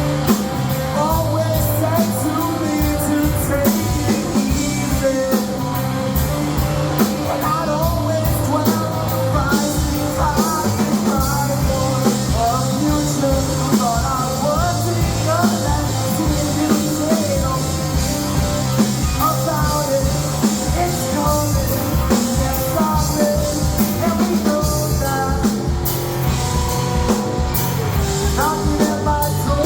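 Rock band playing: a steady drum-kit beat with guitars and a melodic lead line over it.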